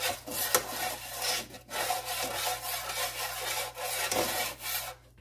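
A cooking utensil scraping around the bottom of a frying pan of hot oil as it is stirred, in short repeated strokes that stop just before the end.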